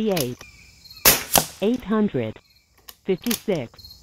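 A shot from a .25 caliber Air Venturi Avenger bullpup PCP air rifle: a sharp crack about a second in, followed by a second crack about a third of a second later. Insects buzz steadily in the background.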